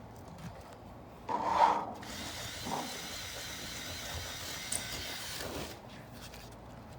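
A power drill running steadily for about three and a half seconds, with a thin high whine, then stopping. A louder burst of noise comes just before it, about a second in.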